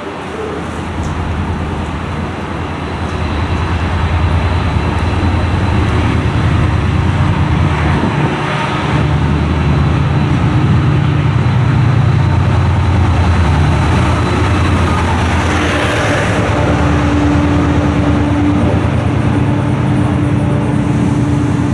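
A TransPennine Express train running close by, its deep, steady engine sound building over the first few seconds and then staying loud.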